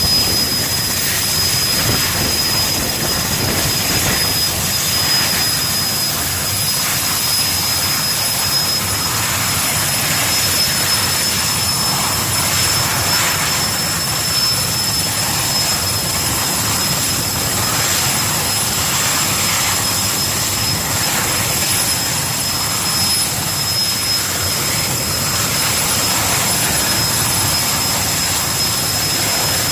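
Erickson S-64 Air-Crane heavy-lift helicopter running with its rotors turning: a steady high-pitched turbine whine from its twin turboshaft engines over the rush and rumble of the rotors.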